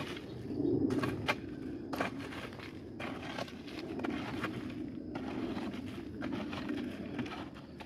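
Digging into a termite mound: irregular knocks of a tool striking hard earth, with scraping and crumbling soil between them.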